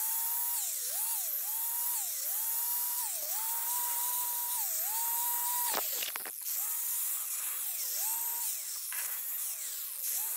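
Handheld grinder whining at a steady high pitch, the pitch sagging and recovering again and again as it is pressed into the metal, with a short break about six seconds in. It is grinding out old filler weld from the broken frame of a Honda three-wheeler.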